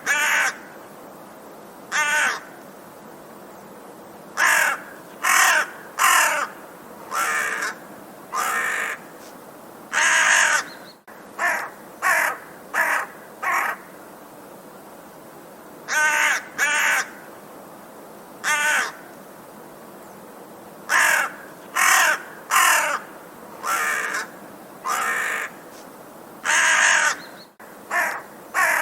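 Crow cawing: short, harsh caws in runs of two to five, with pauses of a few seconds between the runs, over a steady faint hiss.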